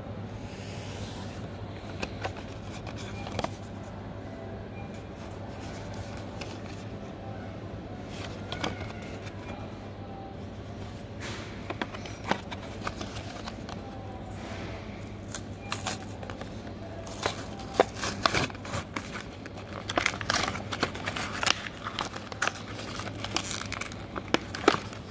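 A plastic blister pack with a cardboard backing being handled and torn open, giving crinkling, crackling and sharp clicks that come sparsely at first and crowd together over the last several seconds. A steady low hum sits under it all.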